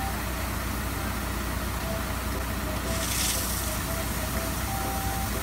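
Water sprinkler truck running, its engine hum under a steady hiss of water spray, with a brief louder hiss about three seconds in.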